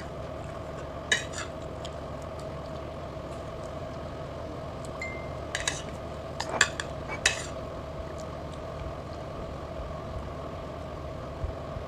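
A metal fork clinking and scraping against a plate: one click about a second in, then a few more in a cluster near the middle, over a steady background hum.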